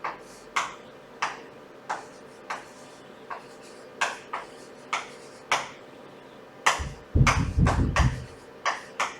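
A pen or marker tapping and striking a writing surface while an equation is written out: a dozen short, sharp ticks at uneven spacing. There is a low rubbing rumble for about a second near the end.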